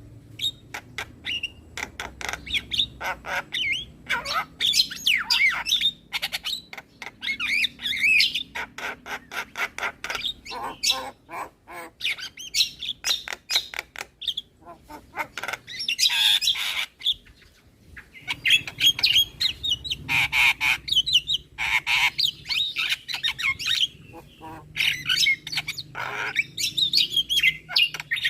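Javan myna (jalak kebo) singing: a fast, continuous chatter of sharp clicks, harsh squawks and whistled gliding notes, with a brief lull about two-thirds of the way through.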